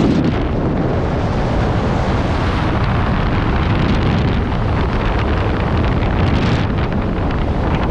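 Skydiving freefall wind rushing over and buffeting the microphone, loud and steady.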